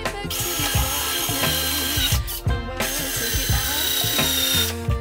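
Cordless drill driving screws into a wooden staircase frame, over background music with a steady beat.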